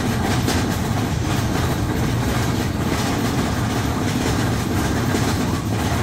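Theme-park ride vehicle moving along its track: a steady low rumble with a continuous clattering rattle.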